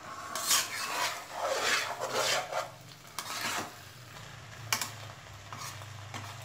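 A spatula stirring and scraping through a kadai of fish and vegetable chorchori, a run of rough strokes over the first three and a half seconds, then a few light clicks.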